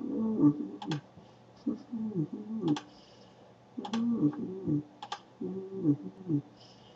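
Computer mouse clicks, sharp and single, about one every second or so, as files and windows are opened. Under them, a low muffled sound rises and falls in pitch in short phrases.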